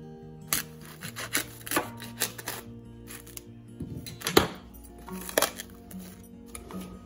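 Background music with held notes, over the crackle and rubbing of plastic cling film being pressed down around a glass bowl, the loudest crackle about four seconds in.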